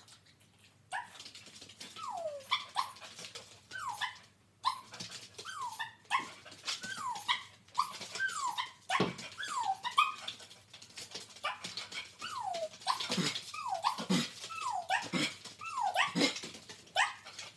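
Dog whining in short, repeated high cries that fall in pitch, roughly one a second, mixed with a few sharper barks in the second half: excited whining during trick training.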